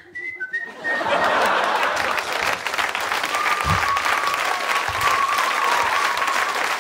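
Audience applauding with whistles. A short whistle comes at the start, then the clapping swells about a second in. A long steady whistle carries over the clapping through the second half.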